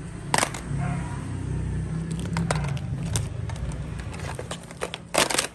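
Broken smartphones clattering and clicking against each other as a hand rummages through a pile of them, with two louder knocks, one just after the start and one near the end, over a steady low rumble.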